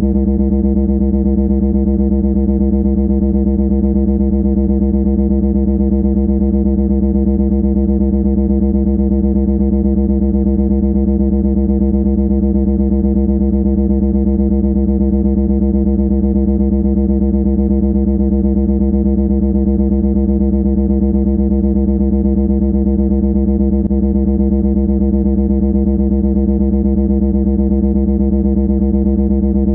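A loud, unchanging buzzing drone held at one fixed pitch, rough and distorted-sounding, without a break.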